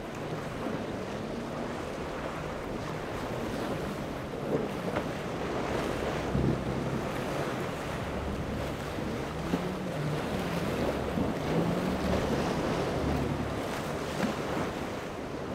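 Wind buffeting the microphone and waves breaking, under the low drone of a Riva 76 Perseo motor yacht's engines as it pushes through rough inlet water, with a few louder splashes.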